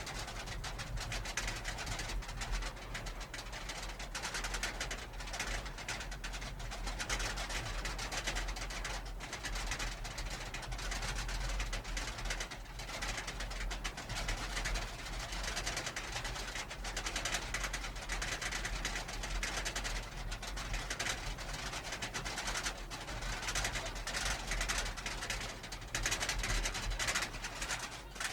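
Giga dive roller coaster train running, heard from the front seat as a steady, dense rattling.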